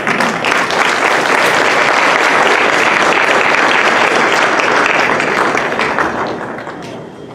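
Audience applauding: dense, even clapping that holds steady and then dies away near the end.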